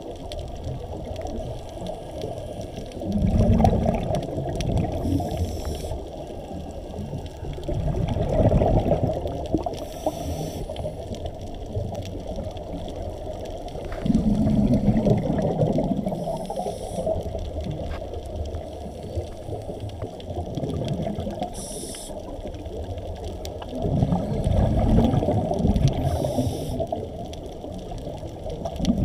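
Scuba diver breathing through a regulator underwater: four loud low rumbles of exhaled bubbles, a few seconds apart, with short hisses of inhalation between them over a steady underwater wash.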